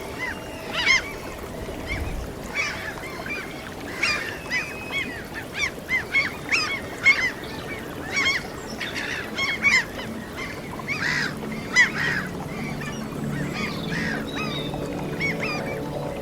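A flock of gulls calls over and over in quick, short, honking cries, above a steady wash of sea waves. A soft, low held tone comes in underneath from about eleven seconds in.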